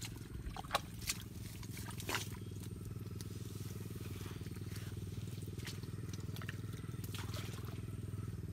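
Hands digging a crab out of its burrow in wet mangrove mud: a few sharp clicks and squelches in the first couple of seconds, then scattered softer ones, over a steady low hum.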